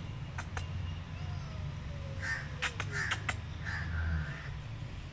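A crow cawing three times, short harsh calls with the last one drawn out longer, with a few sharp clicks around them.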